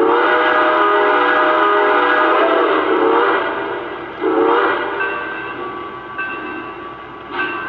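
Three-rail O-scale model of a streamlined Norfolk & Western K2a 4-8-2 steam locomotive sounding its recorded multi-chime steam whistle through its onboard sound system: one long blast of about three seconds, then a short blast about four seconds in.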